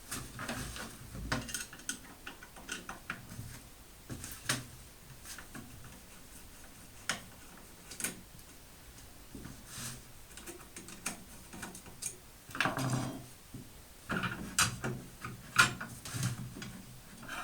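Scattered clicks, taps and knocks of plastic and metal parts being handled and fitted onto a hand-held electric router, with a burst of scraping and knocking near the end. The router motor is not running.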